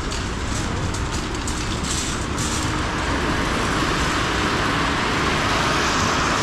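Shopping trolley being pushed, its wheels rolling and rattling across a hard store floor in a steady noise.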